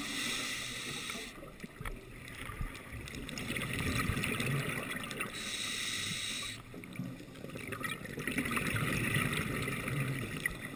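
Scuba breathing through a regulator, heard underwater. A hiss on the inhale about a second long comes twice, near the start and about five seconds later, and each is followed by several seconds of exhaled bubbles gurgling.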